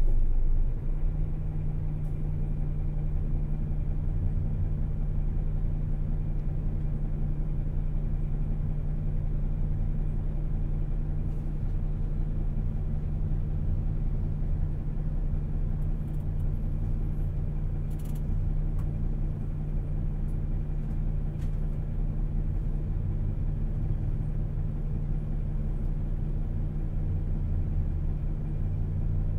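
Hino Selega coach's diesel engine running steadily, heard from inside the passenger cabin as a low drone with road rumble. Its pitch steps up slightly about a second in, then holds even.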